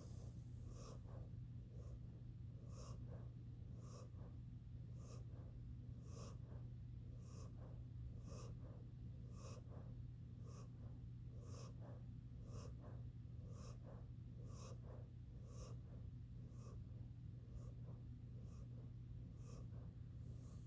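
Faint, noisy breathing in short, regular breath sounds, about one a second, over a steady low hum.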